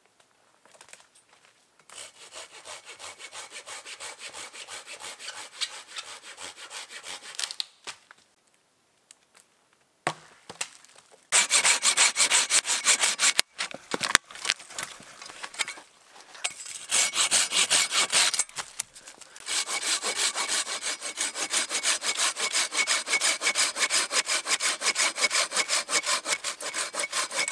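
Hand saw cutting through a dead, dry branch in quick, even back-and-forth strokes. The strokes are fainter at first, then close and much louder from about a third of the way in, with a couple of short pauses before a steady run to the end.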